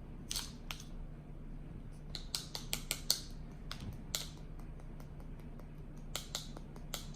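Kinetic sand being scooped and scraped into a mould: short, crisp scratches and crunches that come in a few clusters, near the start, around two to three seconds in, and again about six seconds in.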